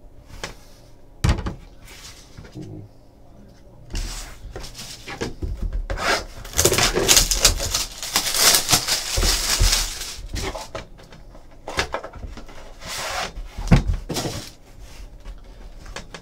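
Hands handling trading-card packaging: plastic wrapping crinkling and rustling, densest in the middle, with scattered knocks and clicks as a hard plastic card slab and a box are moved about.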